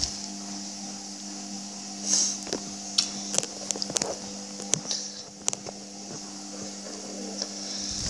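A steady electrical hum that stops near the end, over scattered clicks, taps and rubbing from a phone being handled.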